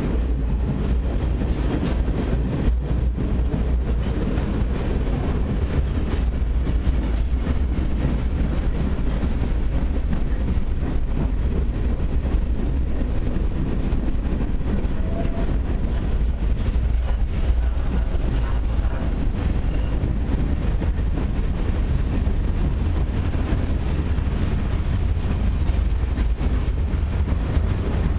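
Freight train cars rolling past, a steady low rumble of steel wheels on the rails that does not let up.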